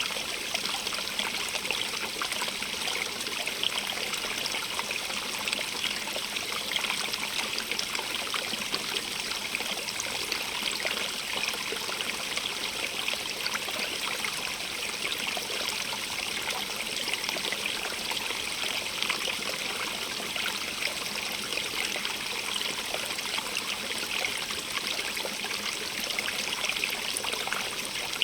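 A small stream running over rocks: a steady splashing and trickling rush that stays even throughout.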